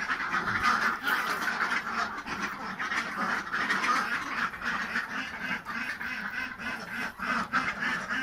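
Ducks quacking in a steady run of calls.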